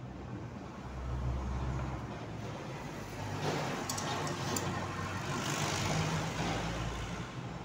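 A road vehicle passing by, its noise swelling and fading over a few seconds, with a few light metallic clicks from a spanner on a bolt under the motorcycle's engine about four seconds in.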